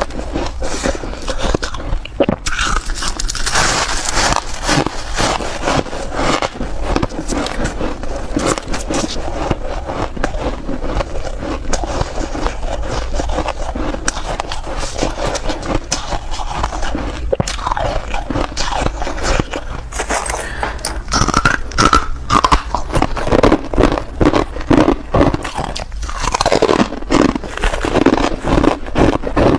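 Soft white ice being bitten and crunched, one crunchy bite after another without a break.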